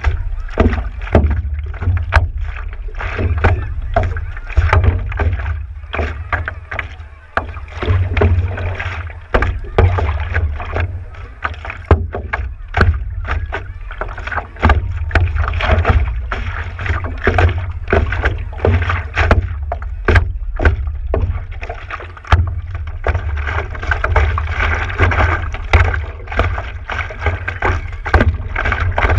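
Seawater slapping and splashing against the nose of a stand-up paddleboard close to the microphone, with irregular sharp splashes of the paddle blade dipping in, over a steady low rumble.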